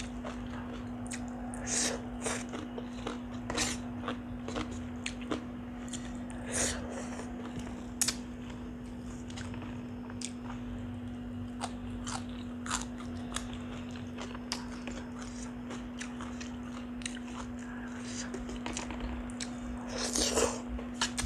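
Close-up chewing and biting of a mouthful of tam sua, Isan pounded salad with rice noodles, eaten by hand, with scattered sharp crunchy clicks. A louder burst of mouth sounds comes near the end as more food goes in. A steady low hum runs underneath.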